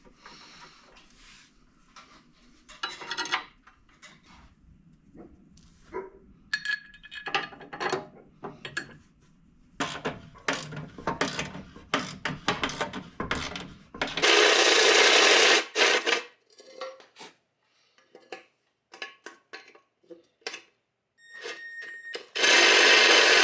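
Hand work on winch-mounting hardware: rubbing, scraping and small metal clinks of parts and tools being handled. Two loud hissing noises of about two seconds each break in, one about fourteen seconds in and one near the end.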